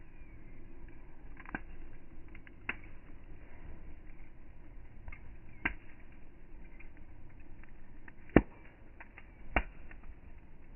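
Campfire crackling: a low steady rustle of burning with a handful of sharp pops, the loudest about two-thirds of the way through.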